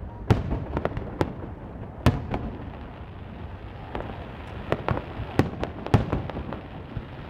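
Starmine fireworks shells bursting in quick succession: a dozen or so sharp bangs at irregular intervals over a continuous low rumble.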